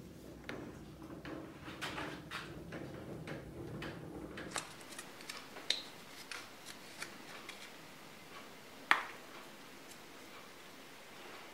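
Light clicks and rattles of hands working metal parts on a lathe: the carriage handwheel being turned, then a flexible metal-sheathed line being handled. A faint low hum stops about four and a half seconds in, and one sharper click comes about nine seconds in.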